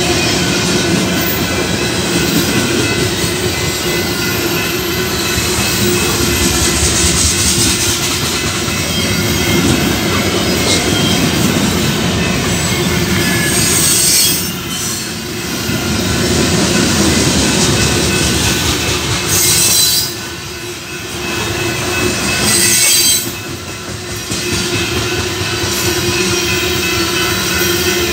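Freight cars of a mixed freight train rolling past close by: a steady rumble and clatter of wheels on the rails, with high-pitched wheel squeal. The sound dips briefly three times in the second half.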